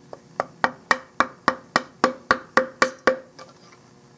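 A chisel being tapped into the inletting of a wooden rifle stock: about a dozen sharp, evenly spaced knocks, nearly four a second, each with a brief ring, stopping about three seconds in.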